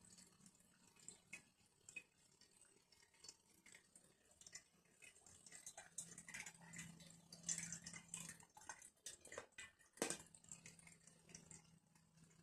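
Faint dripping and trickling of moonshine running through a home-made charcoal filter and out of its spout, with a faint low hum that comes and goes. A sharp click about ten seconds in.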